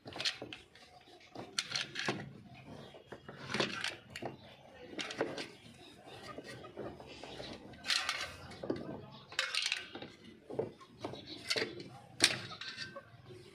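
Irregular metallic clinks and knocks of tools and metal parts being handled, a dozen or so sharp strikes at uneven intervals.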